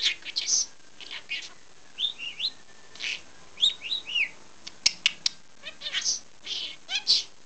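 Pet budgerigar chattering: a quick run of short high chirps, warbles and whistled pitch glides, with a few sharp clicks in the middle.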